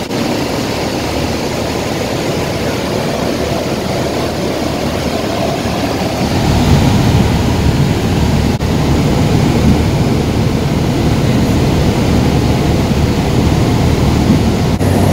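Light single-engine propeller plane running steadily, heard inside the cabin. The engine and propeller noise grows louder and deeper about six seconds in, and dips briefly twice.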